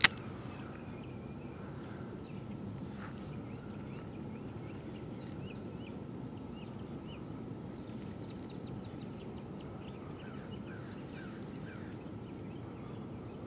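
Lakeside ambience: a steady low outdoor hum with birds chirping and calling over it, most busily near the end. A single sharp click at the very start.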